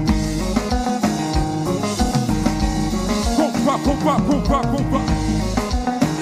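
Live kompa band playing an instrumental passage: guitar lead over drum kit and bass. A run of quick bending notes comes about three seconds in.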